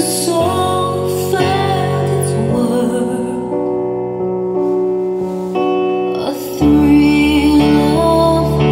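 Marshall Acton II Bluetooth speaker playing a slow female-vocal song with piano at full volume, the sound level meter reading about 95 to 104 dB. The music gets louder and fuller, with more bass, about six and a half seconds in.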